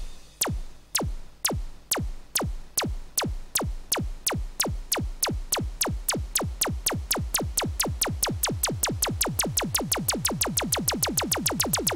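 Goa trance electronic music: a single drum-machine hit that drops quickly in pitch repeats and speeds up steadily, from about two a second to five or six a second, in a build-up roll.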